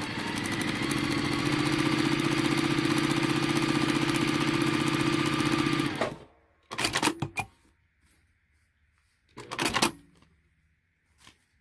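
Electric sewing machine stitching through fabric and a paper foundation at a steady fast speed, building up over the first second and stopping after about six seconds. Then come two brief bursts of handling noise as the sewn piece is drawn out from under the presser foot.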